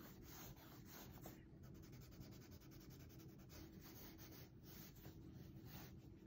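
Pencil scratching faintly on sketchbook paper shaded with vine charcoal, in quick short strokes as it draws wood-grain knots.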